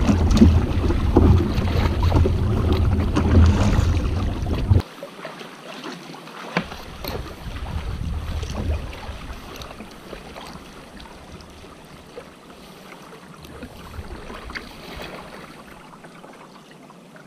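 Sea kayak paddling: paddle strokes and water splashing around the hull, with wind rumbling on the microphone for about the first five seconds. It then drops suddenly to quieter water lapping and paddle drips, with a few small clicks and splashes.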